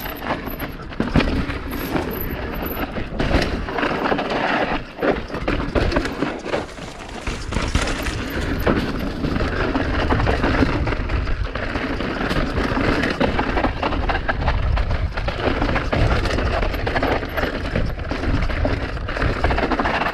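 Mountain bike ridden fast down a dirt jump trail: steady wind rush on the microphone and tyre noise, with frequent rattles and knocks from the bike over bumps and jump landings.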